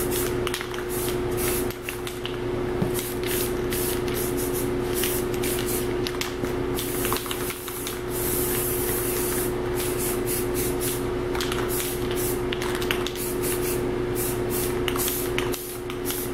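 Aerosol spray paint can hissing in many short bursts, with one longer burst about eight seconds in, as a touch-up coat goes onto a rifle. A steady low hum sounds under it.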